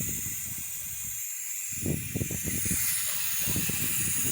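Refrigerant (freon) being vented from a Lada Priora's air-conditioning system: a steady high hiss, with uneven low rumbling underneath.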